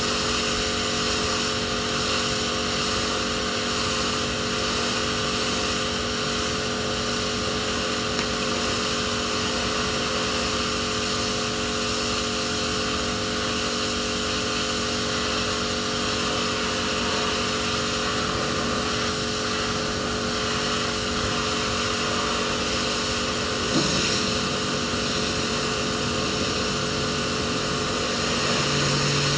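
Electric pressure washer running steadily, its motor humming under the hiss of the water jet spraying a boat deck. A single knock about two-thirds of the way through, and a lower hum joins near the end.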